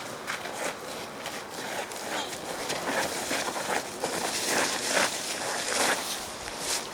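Irregular footsteps and scuffs on rough ground, growing louder through the middle.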